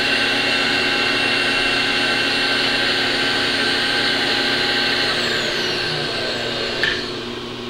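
Milling machine motor running steadily with a whine, then winding down with falling pitch about five seconds in. A short click comes near the end, and a lower steady hum stays on.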